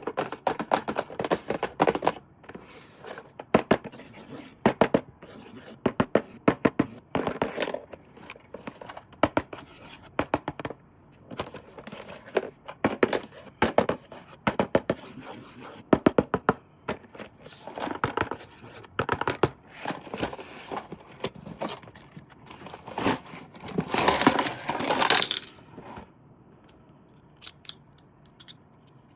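A toy's cardboard box and plastic packaging being opened by hand: snipping, scraping and rustling with many sharp clicks and knocks, and a longer tearing sound about 24 seconds in.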